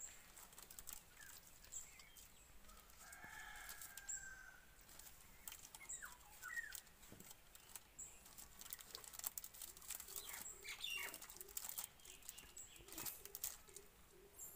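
Faint crinkling and crackling of a plastic packet being handled, in scattered clicks that grow busier in the second half. A few short bird chirps sound now and then.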